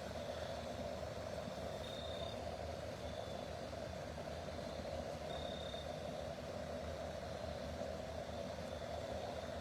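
Steady, engine-like hum and rumble outdoors at night, with a short high-pitched chirp repeating every second or two.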